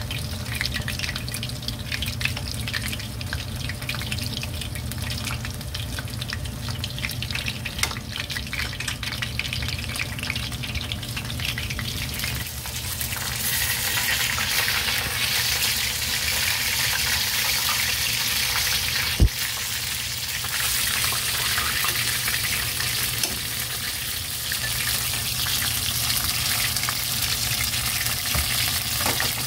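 Battered hosekikintoki (a bigeye fish) fillets deep-frying as tempura in hot oil, a steady sizzle that grows louder and brighter about halfway through. About two-thirds of the way in there is a single sharp knock.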